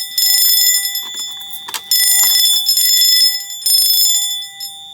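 Fire alarm bells ringing in coded on-off bursts, each about a second to a second and a half long with short gaps, the gongs humming on between strokes. They keep sounding after a panel reset because the coding cycle has not finished. A sharp knock comes a little under two seconds in.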